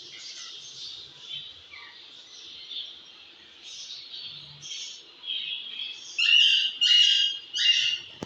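Birds chirping over a steady high hiss, with three louder chirping calls close together near the end.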